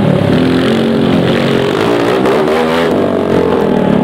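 TVS Apache RTR motorcycle engine revving under a stunt rider, its pitch wavering with the throttle and then rising sharply about two and a half seconds in.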